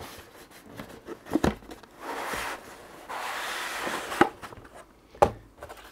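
Cardboard packaging being handled: the inner box slides out of its printed cardboard sleeve with two stretches of scraping, about two and three seconds in, and a few sharp knocks of cardboard against cardboard and the desk.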